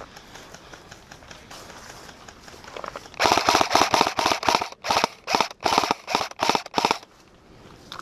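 Airsoft gun firing a rapid string of shots close to the microphone, starting about three seconds in and stopping near the seven-second mark, roughly five shots a second in short volleys.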